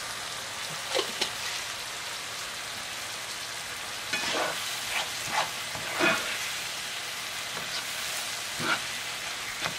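Sliced vegetables sizzling steadily in oil in a non-stick frying pan as they cook down, with several scrapes of a slotted spatula stirring them, most of them bunched around the middle.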